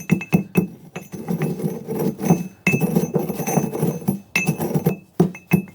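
A pestle pounding roasted quartz ore in a mortar: quick runs of sharp strikes with a short ring, crushing the rock to powder, then a few slower single blows near the end.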